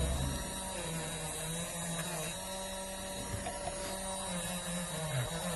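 Motor-driven polishing wheel running steadily while a soldering iron tip is held against it to clean it, a motor hum with a thin high whine and slight pitch shifts.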